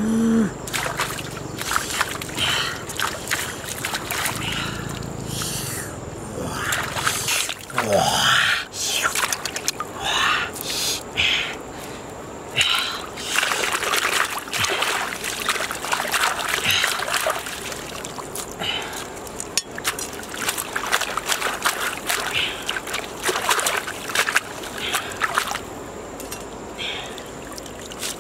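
Hands washing raw squid in shallow river water: splashing and sloshing in irregular bursts.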